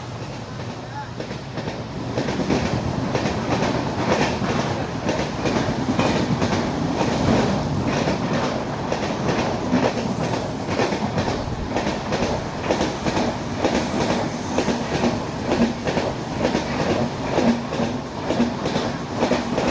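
Red LHB passenger coaches of an express train passing close by at speed, their wheels clattering over the rail joints in a quick, steady rhythm over a continuous rolling rumble.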